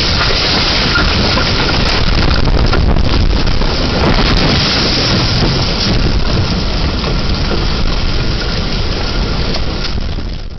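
Tornado winds and driving rain battering a security camera's microphone: a loud, dense, steady roar that eases a little over the last few seconds.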